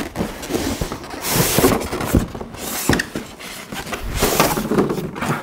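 Cardboard box flaps being pried and pulled open: cardboard scraping and rustling in a few bursts, with a single knock about three seconds in.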